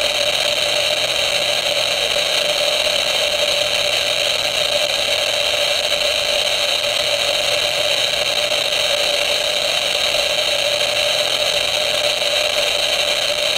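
An Eberline RM-14 radiation monitor's speaker clicking so fast that the counts run together into a steady buzzing rattle. The rate is from about 30,000 counts per minute picked up by its HP-260 probe over the hottest radium-painted switch.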